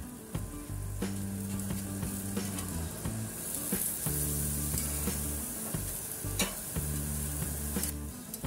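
Marinated chicken sizzling on a hot grill grate, with a few sharp clicks of metal tongs against the grate, over background music with low bass notes.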